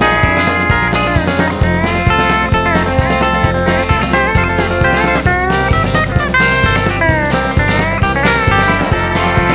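Instrumental break in a blues-rock song: a lead guitar plays notes that bend up and down over a steady drum-kit beat.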